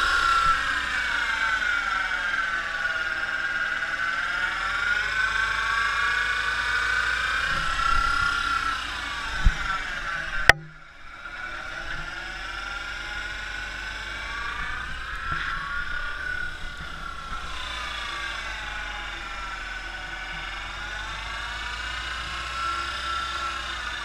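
2002 Subaru WRX wagon's center differential whining in several tones that rise and fall together in slow waves as road speed goes up and down: the sign of a failing center differential. A sharp click comes about ten seconds in, after which the whine is quieter.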